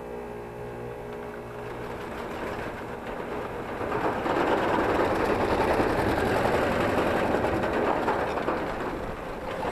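Carrier heat pump's outdoor condenser fan running out of balance, rattling and shaking hard, with the clatter growing louder about four seconds in. It is the sign of a bent, creased fan blade that has thrown one of its balance weights, and the unit is shaking itself apart.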